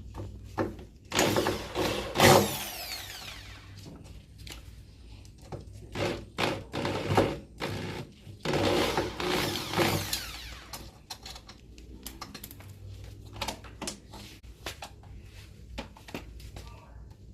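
Power drill-driver run in two bursts of about two seconds each, its whine sliding in pitch, as screws are taken out of a washing machine. Clicks and knocks of parts being handled come between the bursts and after them.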